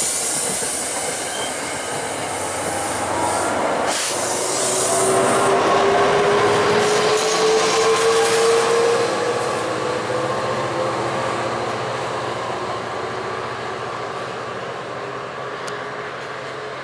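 Metro-North diesel commuter train moving off past the platform: the coaches roll by, then the diesel locomotive pushing at the rear passes with a slowly rising whine as it picks up speed. There is a single clank about four seconds in, and the sound fades as the train draws away.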